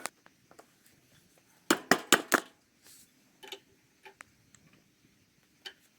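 Sharp metal clicks and clinks from small parts and hand tools being handled at a lawn tractor's wheel and axle: a quick run of four about two seconds in, then a few softer ticks.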